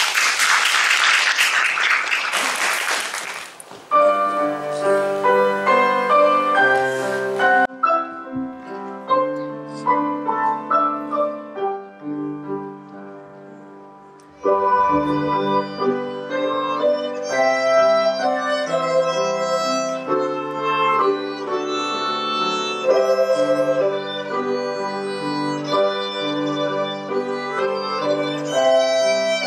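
Audience applause fades out over the first few seconds as a classical piece for violin and piano begins. The music thins to a quiet passage about 12 seconds in, then comes back fuller.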